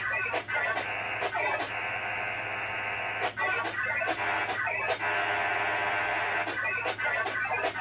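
VARA FM soundcard-modem data signal heard over the radio link, a dense hissing warble held within a narrow voice-like band, coming in blocks of about a second or more with short breaks between them: a Winlink connection exchanging data. A steady low hum runs underneath.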